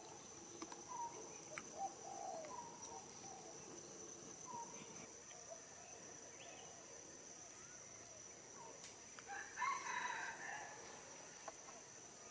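A rooster crowing in the distance, loudest about ten seconds in, with shorter bird calls in between and a steady high-pitched insect drone underneath.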